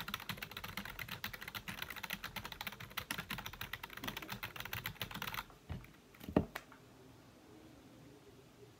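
Rapid typing on a computer keyboard, a quick run of key clicks that stops about five and a half seconds in. Two thuds follow, the second the loudest sound here, and then only quiet room tone.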